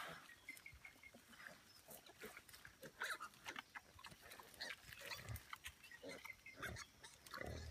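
Feral pigs, a sow and her striped piglets, grunting softly and rustling through the forest-floor litter as they forage, with several low grunts in the second half.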